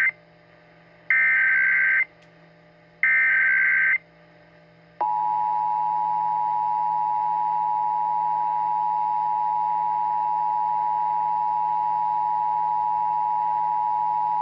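Emergency Alert System SAME header: short, loud bursts of high-pitched digital data tones, each rapidly switching between two pitches. The end of one burst is followed by two more, each about a second long with a second's gap, carrying the encoded alert code, area and times. About five seconds in, the EAS attention signal starts, a steady, harsh two-note tone that holds on.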